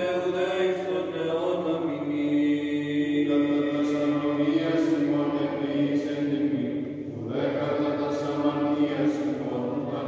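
Greek Orthodox Byzantine chant: voices sing a slow melody in long held notes over a steady low drone, with a short break about seven seconds in.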